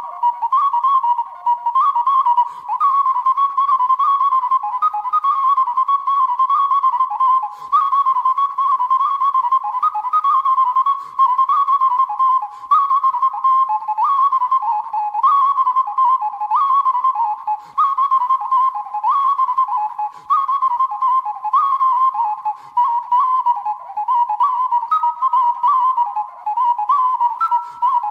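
Background music: a flute-like wind instrument playing a single melody line in short phrases that recur every couple of seconds.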